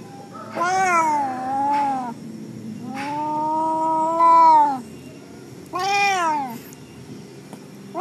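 Domestic cat meowing three times, each meow dropping in pitch at the end; the middle meow is the longest, nearly two seconds.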